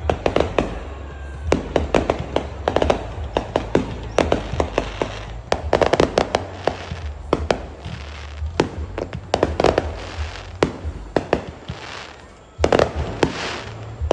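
Fireworks going off: many sharp bangs in quick clusters, with crackling between them.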